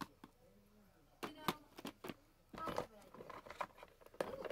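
Scattered light clicks and taps of small plastic toy figures being handled and knocked against a plastic toy car, busier about two and a half seconds in and again near the end.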